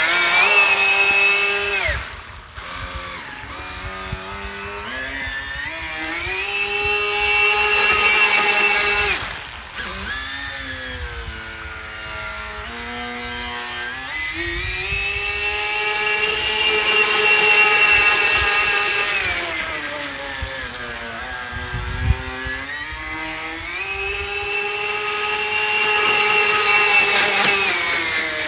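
Single brushless electric motor of an RC boat whining as the throttle is opened and eased off over and over, its pitch climbing and holding high, then falling back, across four runs. A sharp click about two-thirds of the way through.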